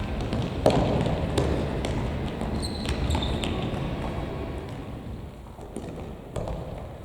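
Futsal ball kicked on an indoor court, in a reverberant gymnasium: a sharp thump under a second in, another shortly after, then short high squeaks of shoes on the floor and smaller knocks of play over a steady hall noise that fades near the end.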